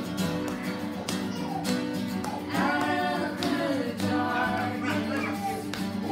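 A group of voices, men and women, singing a song together to two strummed acoustic guitars, with hands clapping on the beat about twice a second.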